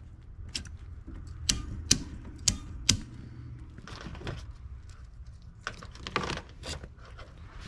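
Sharp clicks and taps of hands working HVAC wiring and a plastic plug connector, irregular and loudest in the first three seconds, over a steady low hum.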